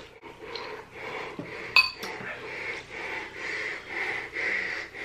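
Rapid, heavy panting breaths, about two a second, from a mouth burning after super-spicy ramen noodles. A metal spoon clinks once against a ceramic bowl a little under two seconds in.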